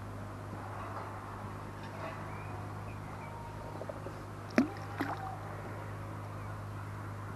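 Two sharp knocks about half a second apart, a little past the middle, from handling a small carp being unhooked over a landing net, over a steady low hum.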